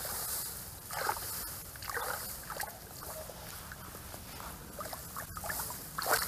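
Hands pulling at grass and working in a small muddy water hole: irregular rustling with soft sloshing and splashing of muddy water.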